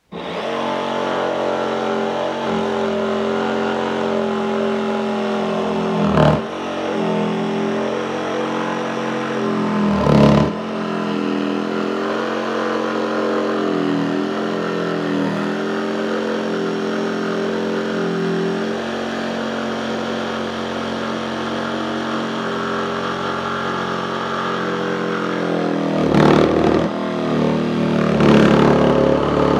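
DeWalt 20V XR cordless jigsaw cutting a curved line through thick lumber in straight, non-orbital mode: the motor runs steadily under load while the blade chatters and vibrates, because it won't bite well through the wood. A few brief louder knocks of the blade stand out, about six and ten seconds in and twice near the end.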